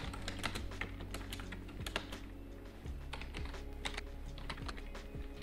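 Typing on a computer keyboard: irregular runs of key clicks.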